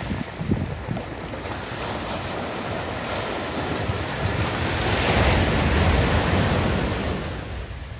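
Small waves breaking on a sandy shore and washing up the beach. The surge builds to its loudest about five seconds in, then eases.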